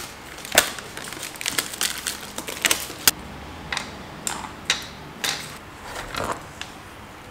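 Plastic wrapping on a new picture frame crinkling and crackling as it is handled and peeled, in irregular sharp crackles with a few louder snaps.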